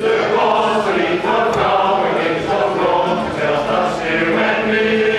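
A community-centre choir singing, holding long notes.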